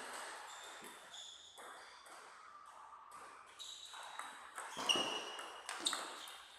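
Table tennis ball clicking off bats and table in a rally, with the sharpest hits about five and six seconds in. Short ringing pings of the ball sound throughout.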